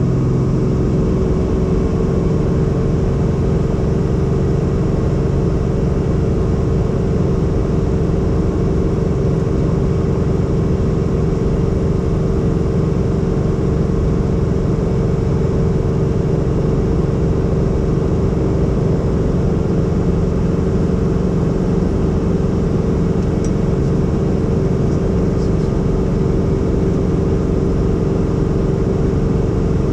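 Helicopter in flight, its engine and rotor heard from inside the cabin as a loud, steady drone with constant humming tones.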